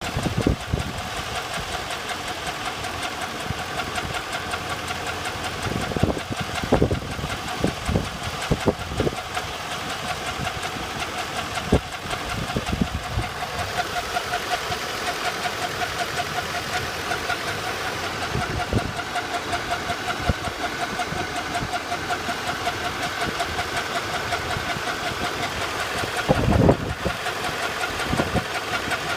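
A 1999 Camaro Z28's LS1 5.7-litre V8 running with a fast, even ticking through it and a few louder knocks. The owner calls it a horrible noise from the driver's side and does not know its cause.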